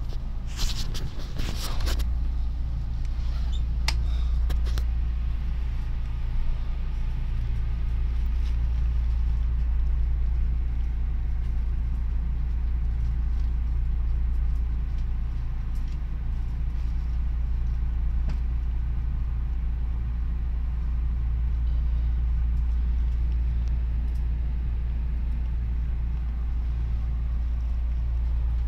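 Steady low hum inside a Meitetsu 2200 series electric train car standing at the platform, from the car's running equipment, with a few sharp knocks in the first two seconds.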